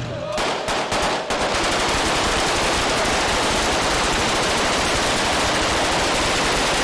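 Automatic gunfire from several rifles fired into the air. A few separate shots come about half a second in, then a dense, unbroken barrage of overlapping bursts.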